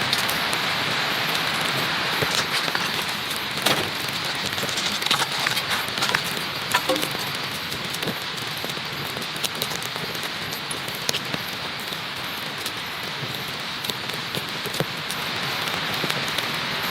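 Steady patter of rain falling on a surface, with scattered sharper drip-like ticks, most of them in the first half.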